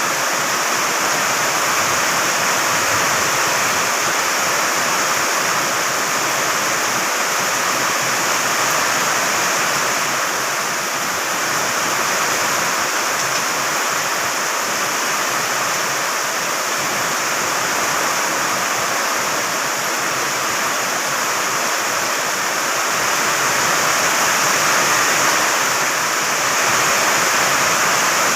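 Heavy tropical downpour: a dense, steady hiss of rain that swells a little near the end.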